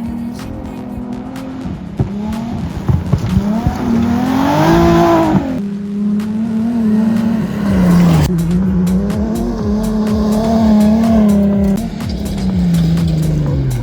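Nissan 350Z's V6 engine being driven hard on a gravel rally stage. It revs up and drops back several times, with sharp falls about five and a half and eight seconds in. Surges of tyre and gravel noise come as the car slides.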